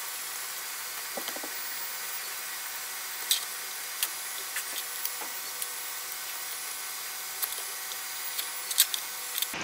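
Scattered light clicks and knocks of a 3D-printed chuck fixture and its T-nuts being worked into the aluminium T-slot table of a 3040 CNC router, sliding in with a little difficulty. The sharpest click comes a little over three seconds in, with a few more near the end, over a steady hiss.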